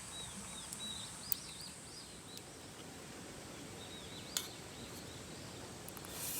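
A bird twittering in two bursts of short, high, curling chirps over a faint steady outdoor background, with two brief sharp clicks, one a little over a second in and one near two-thirds of the way through.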